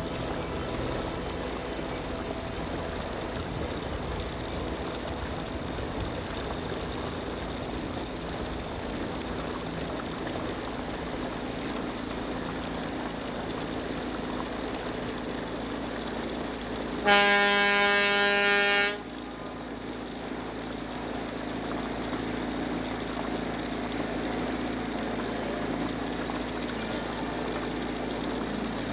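A ship's horn sounds once, a single steady tone held for about two seconds a little past halfway through, over a steady background hum.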